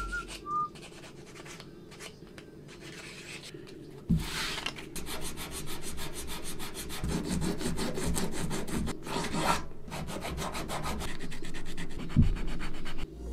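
A craft knife scraping and cutting into a small lure blank pressed against a hard board, in a quick run of short scraping strokes. The strokes grow louder about four seconds in, and there is a single knock near the end.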